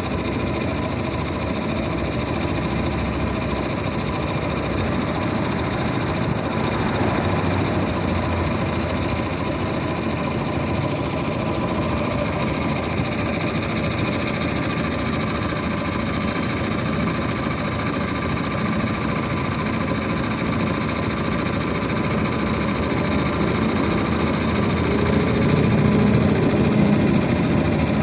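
3 HP Puma 3065 piston air compressor pump running steadily on test, a continuous mechanical hum and clatter, a little louder in the last few seconds.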